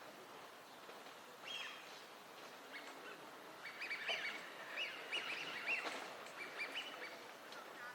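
Eurasian wigeon whistling: a flock's short whistled calls, one call about a second and a half in, then many overlapping calls through the middle and later part.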